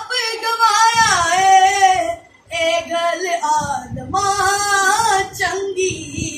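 A boy singing a Punjabi Christian song (masihi geet), in phrases with long held, wavering notes and a short break for breath about two and a half seconds in.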